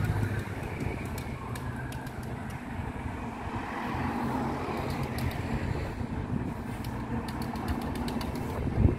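Steady motor-vehicle engine noise with a low hum and road noise, with scattered light clicks and a louder knock near the end.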